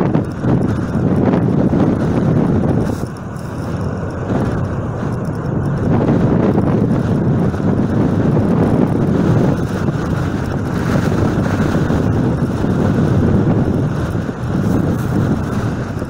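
Strong gusty wind buffeting the microphone in a loud, rough rumble that swells and eases every few seconds, mixed with the jet engines of an airliner climbing away at power after a go-around.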